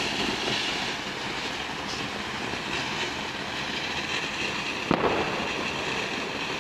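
Fountain firework spraying sparks with a steady hiss, and one sharp crack about five seconds in.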